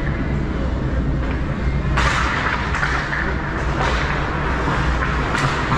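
Ice hockey play in an arena rink: a steady low hum with crowd murmur, then from about two seconds in the scraping hiss of skates on the ice and a few sharp clacks of sticks and puck.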